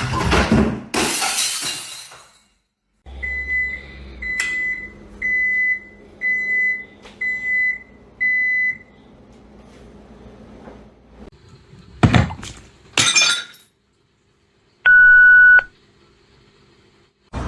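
A clattering crash, then an electronic beeper sounding six times about once a second. Later comes another brief clatter, then a single steady beep tone.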